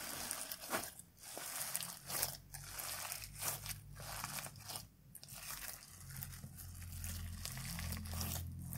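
Hands kneading and squeezing clear slime packed with chunky glitter, giving irregular crunchy crackles and squishes several times a second.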